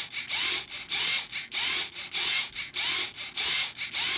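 Lego Mindstorms motor driving the printer's Z-axis linear actuator in short whirring bursts, about two a second, each rising briefly in pitch, lowering the print platform under manual control.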